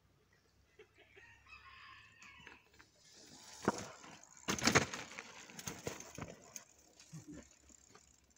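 A rooster crowing faintly in the background, then a cluster of loud knocks and rattles about halfway through as a BMX bike bumps over a pole laid on cinder blocks on dirt ground, with a few smaller knocks after.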